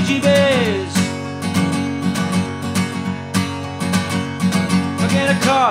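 Background music: a strummed acoustic guitar with a steady rhythm, and a falling held note near the start.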